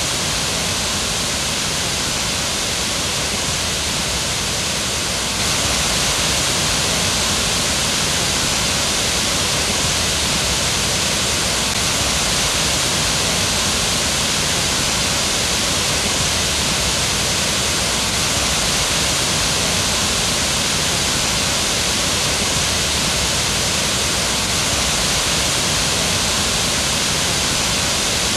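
Steady rush of water pouring over a low, wide waterfall on a river, a little louder from about five seconds in.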